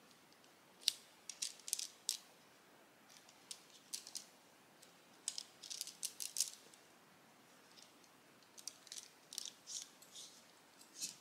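Tent pole sections clicking and clacking together as they are unfolded and joined, in irregular clusters of sharp clicks.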